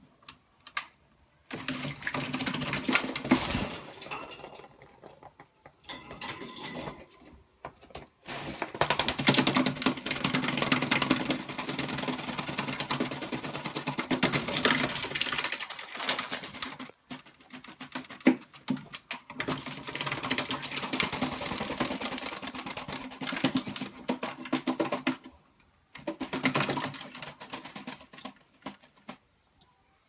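Black-capped lory bathing in a water bowl: bursts of rapid splashing and wing-fluttering a few seconds long, about five of them, with short pauses between.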